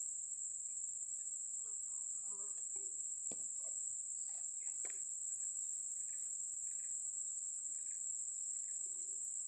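Steady high-pitched drone of insects, with faint scattered chirps and two soft clicks about three and five seconds in.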